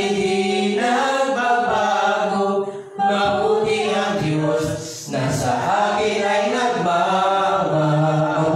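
A man singing a worship song into a microphone, unaccompanied, in long held notes, with short breaks between phrases about three and five seconds in.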